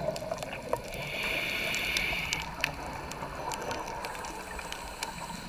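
Underwater ambience recorded by a camera on a scuba dive: a steady watery wash with scattered sharp clicks, and a hiss lasting about a second that starts about a second in.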